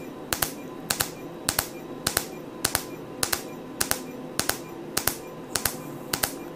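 Erbium-YAG laser handpiece pulsing on skin during a superficial peel (ablation of the epidermis), giving sharp snaps in quick pairs, a pair a little under twice a second, over a faint steady hum.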